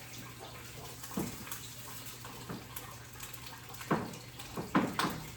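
An egg frying in butter in a pan: a steady sizzle, with a few short sharp clicks about a second in and a cluster of them near the end.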